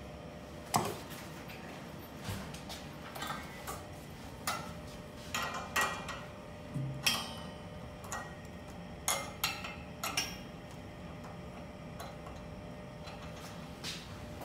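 Hands handling the gas pipeline hoses and their connectors at the back of a Datex-Ohmeda anaesthetic machine: a series of irregular sharp clicks and knocks, some close together, with the loudest near the start and several more around the middle.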